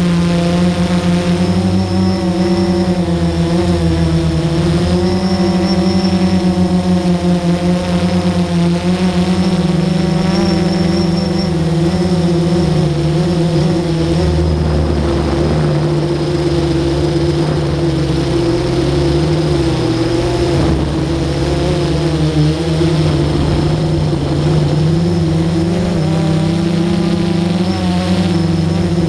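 Motor and propeller of a small remote-controlled camera aircraft in flight, heard from its onboard camera: a steady, loud motor hum whose pitch wavers slightly up and down.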